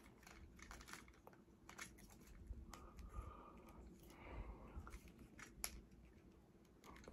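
Faint, scattered clicks and scrapes of hard plastic parts as a new upgrade-kit forearm is pushed by hand onto a Transformers action figure.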